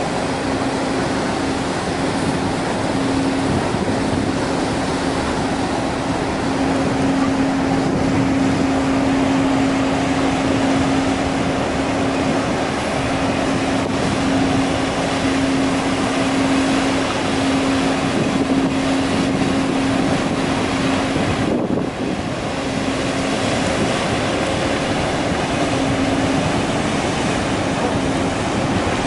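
Hellenic Seaways ferry Nissos Rodos under way close by: its engines give a steady hum over a continuous rush of water churned up by the hull and wake.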